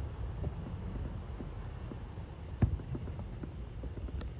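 Distant fireworks going off: one sharp bang about two and a half seconds in and scattered faint pops, over a low steady rumble.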